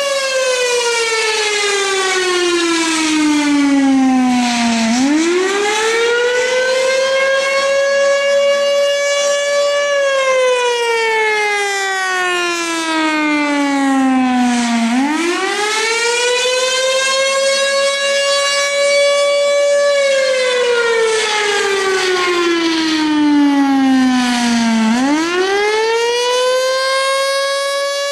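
Federal Signal Thunderbolt 1000 civil defense siren sounding a wail during its scheduled test. Its pitch slides down over about five seconds, swoops back up, holds for a couple of seconds, then slides down again, cycling roughly every ten seconds.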